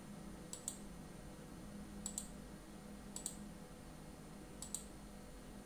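Computer mouse button clicked four times, a second or so apart, each a quick pair of clicks from the press and release, over a faint steady hum.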